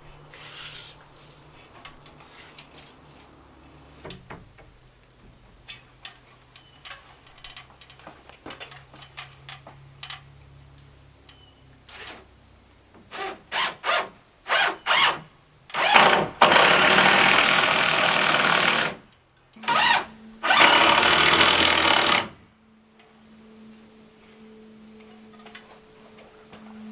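Power tool triggered in several short bursts, then run twice for a few seconds each, during framing work on wooden door ribs; light knocks and taps of handled lumber come before it.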